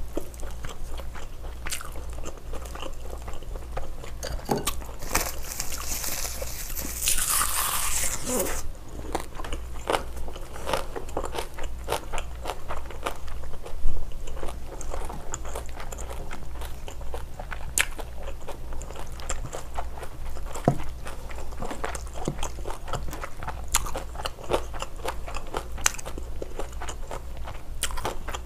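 Close-up eating sounds: biting and chewing of a spicy stir-fried seafood dish with rice, full of small crunching clicks. A louder hissing crackle runs for a few seconds about five seconds in, and there is one sharp knock about halfway.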